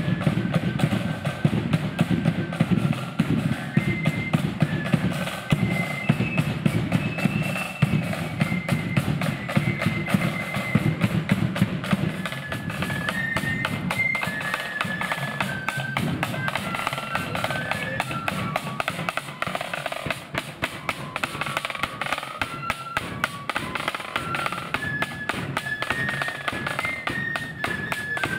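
Marching flute band playing a march: a flute melody carried over rapid snare drum rolls and the steady beat of a big bass drum.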